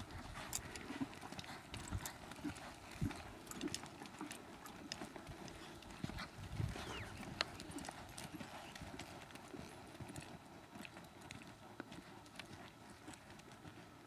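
Hoofbeats of a young gelding loping a barrel pattern on soft arena dirt: dull, uneven thuds with sharper clicks, growing fainter near the end as the horse moves away.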